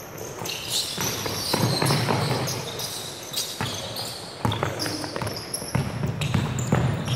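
A basketball being dribbled on a wooden gym floor, a run of bounces, with sneakers squeaking in short high chirps as players run and cut.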